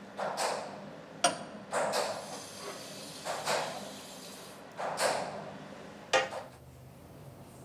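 Tap water splashing over a small porcelain iodine-test dish into a copper basin as the dish is rinsed, in several swelling gushes. There are two sharp knocks, about a second in and again near the end.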